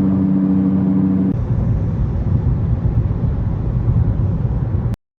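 Nissan Sentra driving with a steady hum from a worn rear wheel hub bearing. About a second in, the sound cuts to plain road rumble with no hum, with the new hub assembly fitted, and it stops abruptly near the end.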